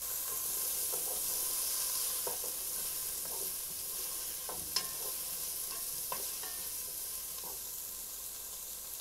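Chopped white onion sautéing in butter in a pot: a steady high sizzle, stirred with a wooden spoon that gives scattered light scrapes and taps against the pot. One sharper tap comes about halfway through.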